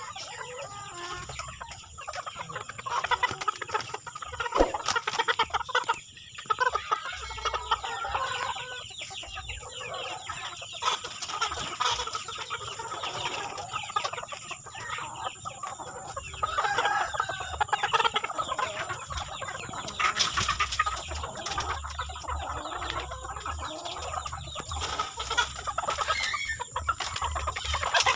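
A flock of chickens clucking and calling over one another, with a rooster crowing now and then.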